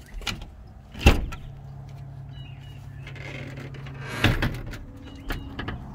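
Glass storm door swinging shut and banging closed with a sharp knock about a second in, then a second heavy knock with a rattle about three seconds later. A few brief bird chirps come in between.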